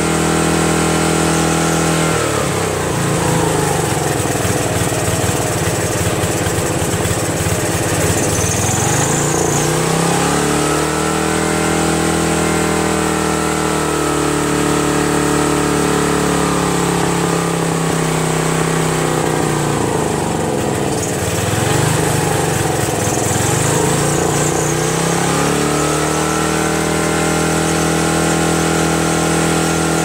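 Dayton 5000 W generator's 11 hp Briggs & Stratton engine running fast. About two seconds in its speed drops, then it slowly picks up again. It dips a second time about twenty seconds in and returns to a high, steady speed near the end, as the choke and throttle are worked by hand; with its throttle linkage missing, it runs at super high throttle unless held.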